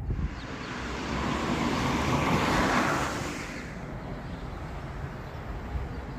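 A vehicle passing by: a rushing noise that builds to a peak about three seconds in, then fades to a steady background hum.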